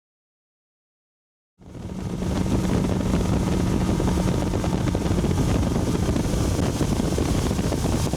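Silence for about a second and a half, then wind buffeting the microphone steadily over the low hum of a boat motor running.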